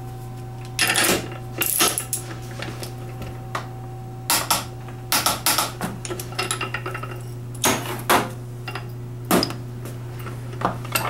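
Scattered metal clicks and clinks of hand tools as a torque wrench is fitted to a 7.3L Powerstroke injector held in a bench vise and the injector is torqued, then tools are set down on the bench. A steady low hum runs underneath.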